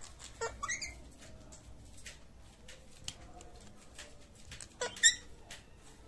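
Indian ringneck parakeet giving two short squeaky calls, one about half a second in and a louder one about five seconds in, with light clicks in between.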